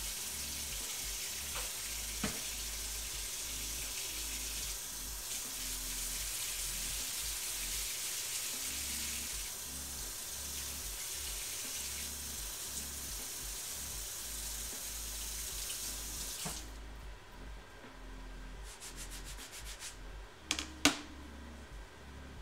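Water running from a kitchen faucet into the sink, shut off abruptly about three-quarters of the way through, then a couple of sharp knocks as something is set down on the counter.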